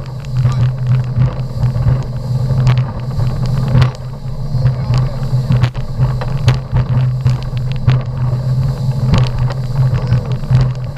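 Motorboat engine running steadily under way, a constant low drone, with irregular sharp knocks and thumps over it.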